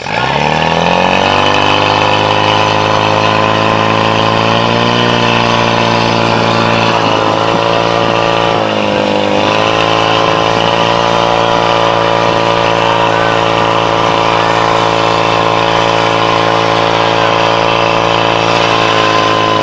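Portable fire pump engine running at full throttle to drive water through the attack hoses to the nozzles. It revs up over the first couple of seconds, then holds a steady high note, with a brief sag in revs about eight seconds in.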